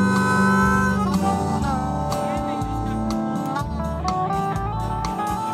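A band playing an instrumental passage live: guitar accompaniment under a lead melody of long held notes that bend between pitches.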